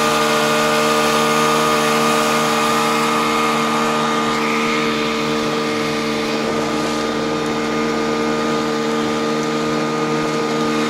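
Small tiller outboard motor driving an inflatable boat at steady speed, running at an unchanging engine pitch over a constant hiss of spray and wind.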